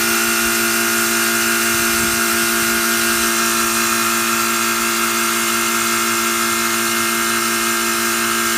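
Air-conditioner condenser unit running with a loud, steady electrical hum and a hiss over it.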